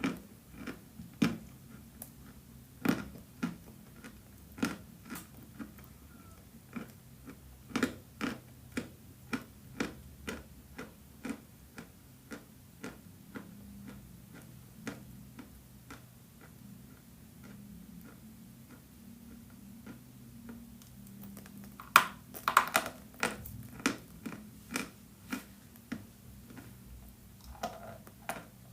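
Chalk being bitten and chewed, a run of sharp crunches about two a second, thinning out in the middle, then a burst of louder crunches a little past two-thirds of the way through.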